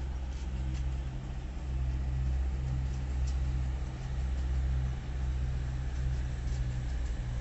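Diesel train engine running steadily, a low rumble that swells and eases a little.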